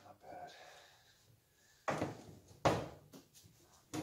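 Handling noise from a car seat back being worked over on a metal tool chest: two loud, sudden knocks with a scrape, under a second apart, as the seat-back frame and its cover are shifted. A small click near the end.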